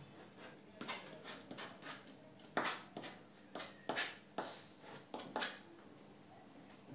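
Palette knife scraping and tapping on a stretched canvas in a run of about a dozen quick, short strokes, the loudest about two and a half and four seconds in, stopping about five and a half seconds in.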